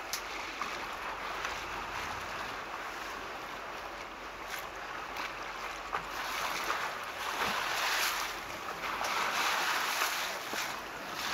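Wind and sea noise heard from a boat on open water: a steady hiss of wind on the microphone and waves, swelling louder about six seconds in, with a few brief clicks.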